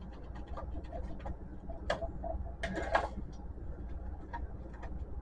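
Plastic parts of an HP Photosmart C4480 printer being handled during a teardown: a run of small clicks and knocks as the logic board is worked loose from the chassis, with one sharper knock about two seconds in and a short clatter just before three seconds.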